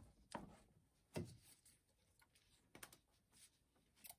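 A few faint, separate knocks and clicks of parts being handled in a car's engine bay, the loudest about a second in.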